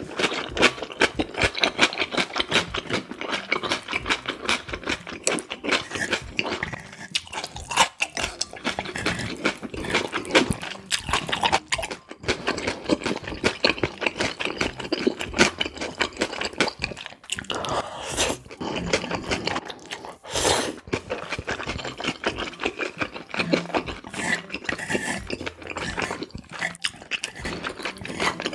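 Close-miked eating of cold spicy bibim noodles: rapid wet chewing and mouth smacking, with a few louder slurps of noodles.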